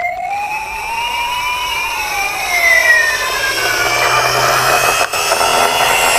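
Toy fire truck's electronic siren sound effect: one slow wail rising then falling over about three seconds, followed by a steady buzzing, engine-like noise.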